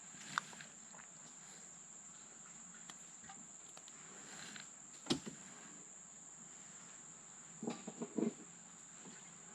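Insects trilling steadily in the background, one continuous high-pitched whine, with a sharp click about five seconds in and a few short soft knocks near the end.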